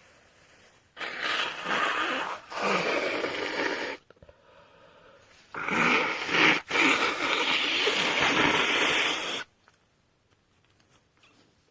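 A woman blowing her congested nose into a tissue: two long blows of about three and four seconds, each briefly broken once.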